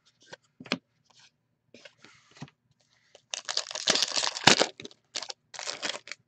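A trading card pack's wrapper being torn open by hand and crinkled. A few light rustles are followed by a loud stretch of tearing and crinkling in the middle, with a sharp rip at its height, and more crinkling near the end.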